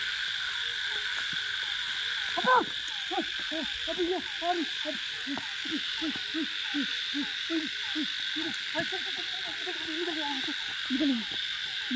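A steady chorus of night insects, with a run of short pitched cries starting a couple of seconds in. Each cry falls in pitch, and they repeat about two and a half times a second. The run opens with a loud cry and ends near the end with a longer wavering one and another loud one.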